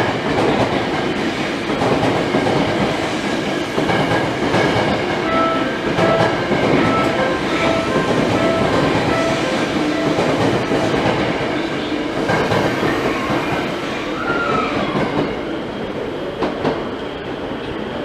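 Electric commuter train running on the track, with steady rumble and clickety-clack of the wheels, and a brief falling whine about two-thirds through.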